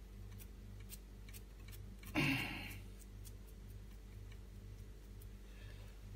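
A sponge dabbing acrylic paint through a plastic stencil onto a canvas board: faint, irregular light ticks and taps, with one louder short scuffing sound about two seconds in.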